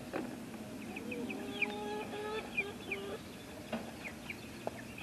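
Young chickens calling softly: several drawn-out calls held at a level pitch over the first three seconds or so, with short high chirps scattered through. A few faint knocks come in near the start and late on.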